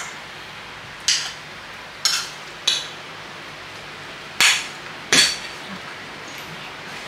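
Ceramic plates and spoons clinking on a dining table as bowls of food are set down and served. There are five sharp clinks, spread irregularly over a few seconds.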